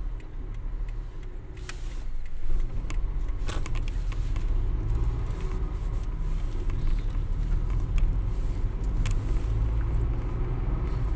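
Car interior noise while driving: a steady low engine and road rumble that grows louder about two seconds in as the car pulls away and picks up speed, with scattered light clicks and rattles.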